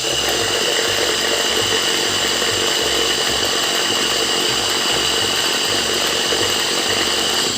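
Small electric blender motor running steadily, blending carrot pieces with a little water into juice; it cuts off abruptly at the end.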